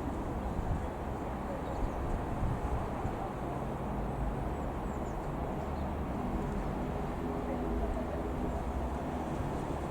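Distant twin-turboprop Cessna F.406 Caravan II droning steadily as it passes, a low rumble with a faint steady hum.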